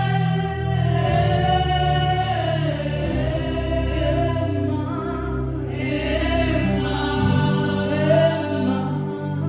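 Gospel worship song: a group of voices singing long held notes over instrumental accompaniment with steady low bass notes.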